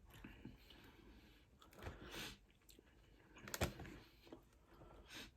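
A person quietly eating sweet chilli prawn noodles: soft chewing and mouth sounds, with a sharp click about three and a half seconds in and a smaller one near the end.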